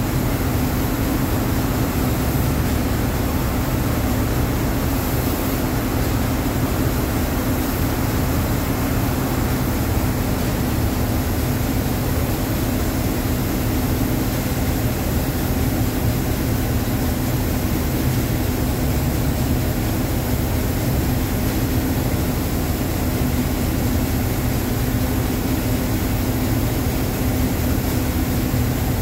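Large diesel engine of a wheel loader fitted with a tyre handler, running steadily: a constant hum over a low rumble, with no change in engine speed.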